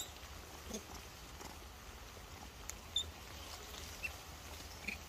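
A few faint short squeaks and small clicks, scattered and irregular, from young macaques picking through dry leaves on the ground, over a low steady hum.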